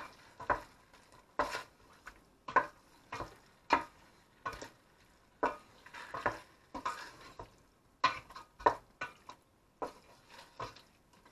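A spoon stirring chicken in frying green curry paste, knocking and scraping against the pot in irregular strokes, about one or two a second.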